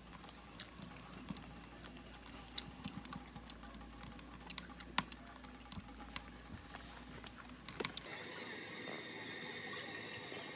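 Wood fire crackling in an ammo-can camp stove: scattered sharp pops over a faint hiss. About eight seconds in, the sound changes abruptly to a steadier hiss.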